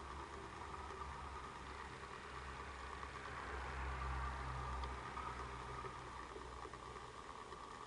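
Steady low hum of the small motor in a rotating display turntable, a little louder around the middle.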